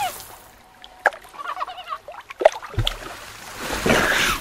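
Water splashing and sloshing around a seal at the surface, with scattered short splashes and a louder rush of splashing water near the end.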